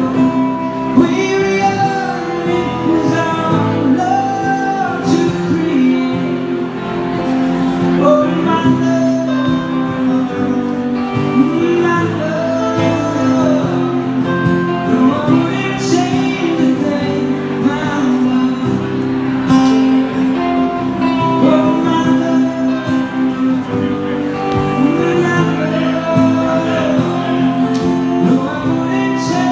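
Live band playing a slow song: strummed acoustic guitar and electric guitar, with a man singing into the microphone.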